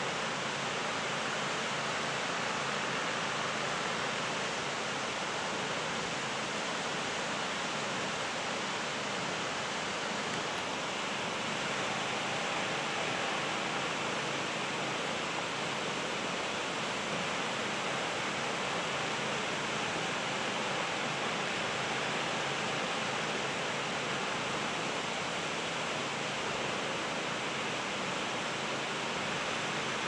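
Nunobiki Falls, a tall single-drop waterfall, falling steadily: an even hiss of water that does not change.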